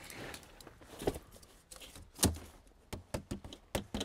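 Hollow recycled-polypropylene stormwater crate modules knocking and clacking as they are handled and set in place, with one louder knock about two seconds in and a quick run of lighter knocks near the end.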